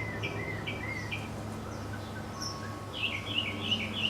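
Songbird singing: a run of short, evenly repeated chirps, then a quicker burst of twittering about three seconds in, over a faint low steady hum.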